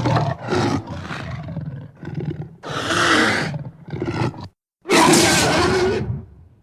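Designed Poposaurus creature calls: a run of rough growls and grunts, a hissing call about three seconds in, a short grunt, then a longer, loud roar about five seconds in that fades away.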